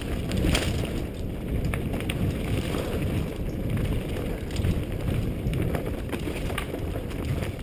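Mountain bike ridden fast down a dirt forest trail, heard through a helmet-mounted camera: a steady rumble of wind buffeting the microphone, with scattered clicks and rattles from the bike over rough ground.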